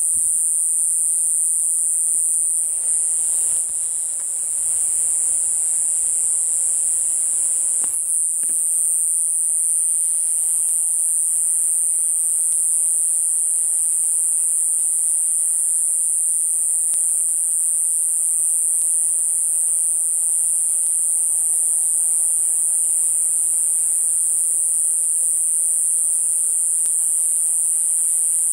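Continuous high-pitched trilling of night insects, unbroken and steady, with a faint low haze underneath.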